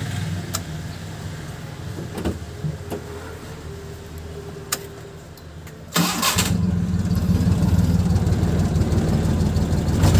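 Maruti Omni's 796 cc three-cylinder petrol engine cold-started on the key. A low hum runs for the first six seconds; then a brief crank, and the engine catches at once and runs steadily and much louder. It fires at the first try now that the distributor timing has been reset.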